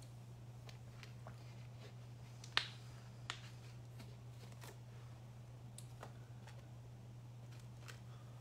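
Low steady hum with scattered small clicks and ticks over it; the sharpest click comes about two and a half seconds in, followed by a smaller one.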